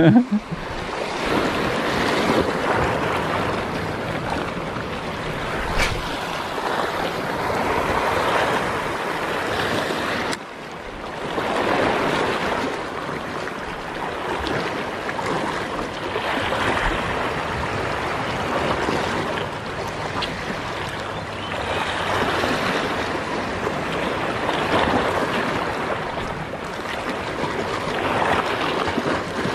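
Sea waves washing against a rocky shore, swelling and falling every few seconds.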